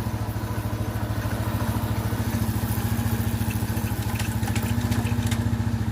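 Italika Z150 motorcycle engine idling steadily in gear, with an even, rapid pulse. There is no whine from the transmission gears, whose worn bushing has just been replaced.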